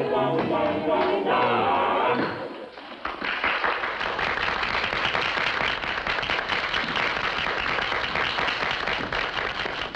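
A short music bridge ends about two seconds in. An audience then applauds steadily to the end, with crowd voices under it.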